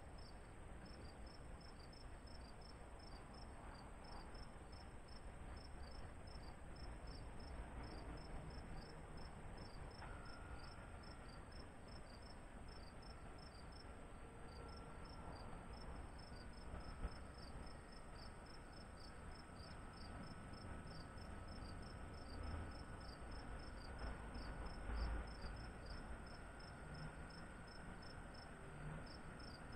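Insects chirping in a fast, even rhythm, with a constant high-pitched whine above it, over a faint low rumble.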